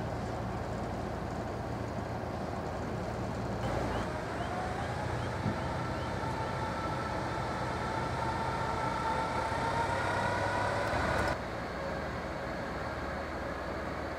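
A steady low mechanical hum, joined about four seconds in by a whine that rises slowly in pitch and cuts off suddenly about eleven seconds in.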